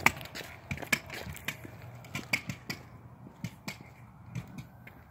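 Kick scooter and footsteps on a concrete sidewalk: sharp, irregular clicks and taps, a few a second, growing fainter toward the end.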